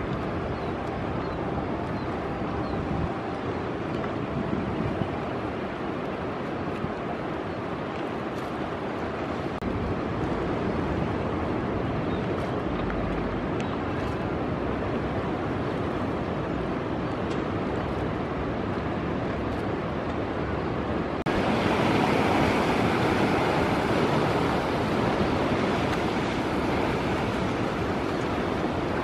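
Ocean waves breaking, a steady rushing wash of surf. About three-quarters of the way through it turns suddenly louder and brighter.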